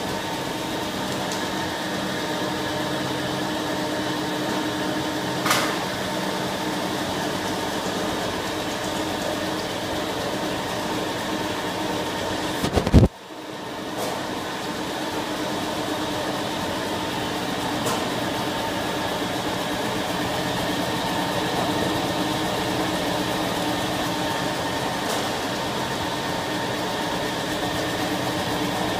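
Electric ginger-slicing machine running with a steady motor hum. A sharp knock comes about five and a half seconds in. About thirteen seconds in there is a loud thump, and the sound briefly drops away, then builds back up within a second.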